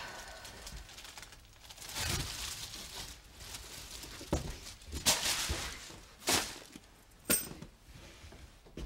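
Handling noises as a plastic shopping bag and a backpack are set down on a sofa: a series of short rustles and soft knocks, with a few footsteps.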